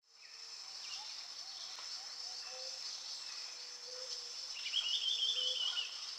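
Outdoor nature ambience fading in: a steady high insect chorus with birds calling, and a brighter warbling bird call about three-quarters of the way through.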